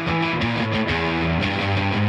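Guitar part from a mix playing back through a SoundToys Little Plate plate-reverb plugin, an emulation of the EMT 140 plate, with the notes changing several times.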